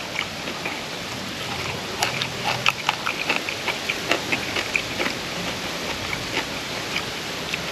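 Close-up eating sounds: a person chewing with the mouth open, with a run of short wet smacks and clicks, thickest in the middle, over a steady hiss.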